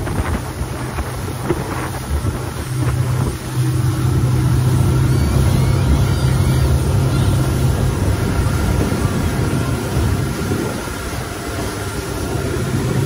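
Motorboat engine running under way, a steady low hum that grows louder about three and a half seconds in and eases off near the end, with wind buffeting the microphone.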